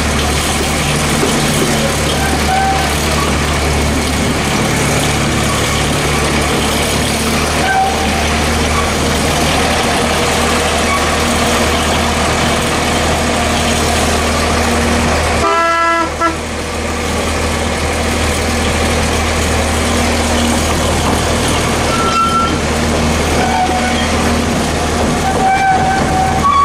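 Narrow-gauge diesel locomotive running with a steady low engine drone as it hauls the carriage along. About two-thirds of the way through, one short horn toot sounds.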